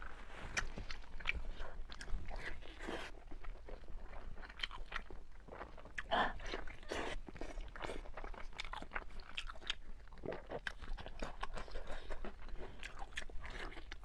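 Close-miked chewing and biting of braised pork intestine bundles: irregular wet clicks and smacks of the mouth working through the chewy meat.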